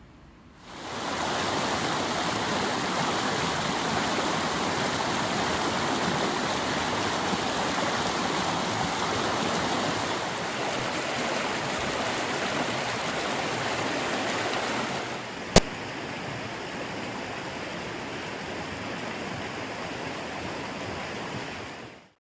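Mountain stream water rushing steadily. A single sharp click comes about fifteen seconds in, after which the rushing is quieter, and it cuts off abruptly just before the end.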